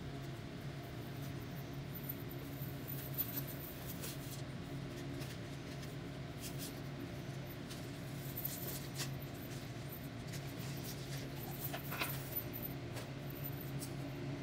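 Faint clicks and rustles of seed-bead strands and small metal chains being handled and pulled apart by hand, over a steady low hum.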